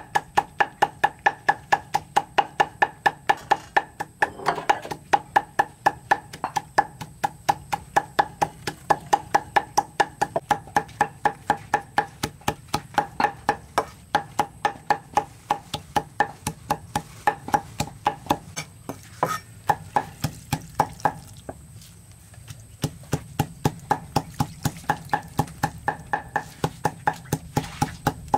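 Cleaver chopping dried red chillies on a thick wooden chopping block: rapid, even knocks, about four a second, easing briefly about three quarters of the way through.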